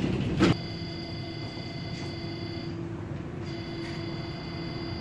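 Tatra KT8D5 tram's on-board electrical equipment giving a steady hum with a high whine over it, after a single short knock about half a second in. The high whine drops out briefly around three seconds in.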